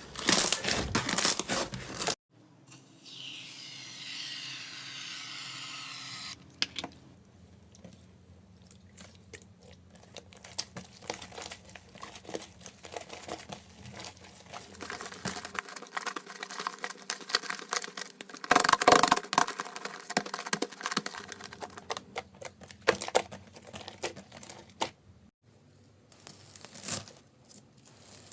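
Slime being squeezed, poked and stretched by hand, giving dense runs of small sticky clicks and crackles. The sound changes abruptly a few times as one short clip gives way to the next.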